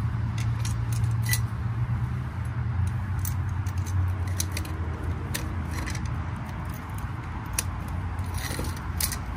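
Metal clinking and rattling as a blower motor's mounting band and its bolt are handled and fitted, a string of sharp clicks at uneven intervals, over a steady low hum.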